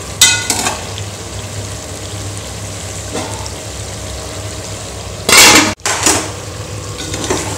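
Chicken and masala frying with a steady sizzle in an aluminium pressure-cooker pot. A metal utensil clanks and rings against the pot just after the start, there is a loud scrape about five seconds in, and a slotted steel spoon knocks against the pot as it stirs near the end.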